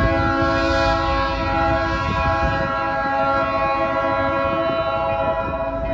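Multi-chime air horn of a New England Central GP40 freight locomotive, sounding one long, steady chord of several notes as the train approaches.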